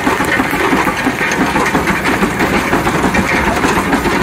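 Steam traction engine running steadily as it rolls past on steel wheels, a loud, dense clatter of fast irregular strokes with steam noise.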